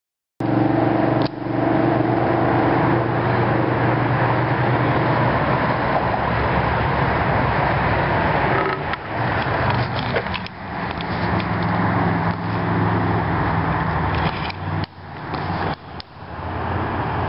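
Road traffic noise, starting abruptly about half a second in, with a steady low hum for the first eight seconds or so, then rising and dipping unevenly.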